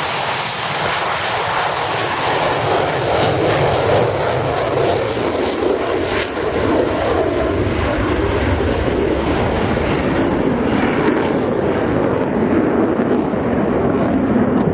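Loud, continuous roar of military jet engines, steady throughout, its highest part easing down gradually in the second half.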